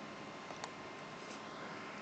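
Quiet room tone: a steady hiss with a faint steady tone, and two faint clicks about half a second in.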